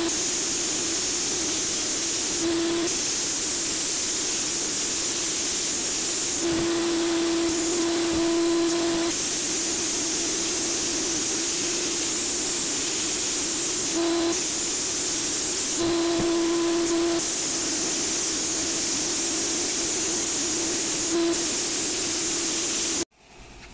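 Sandblasting cabinet's blast gun spraying abrasive in a steady loud hiss of air and grit, with a low steady tone that grows louder several times. The blast cuts off suddenly near the end.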